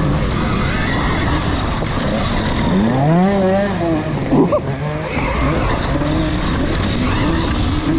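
Wind rush and knobby tyres scrabbling on loose dirt as an electric KTM dirt bike is ridden hard on a motocross track. Over this a dirt bike's engine revs up and down, most plainly about three seconds in.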